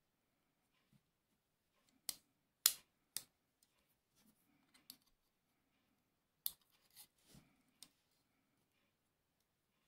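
Sharp metallic clicks and taps of the steel parts of a small miquelet flintlock lock being handled and fitted together: three clicks about two seconds in, then four more about six and a half seconds in.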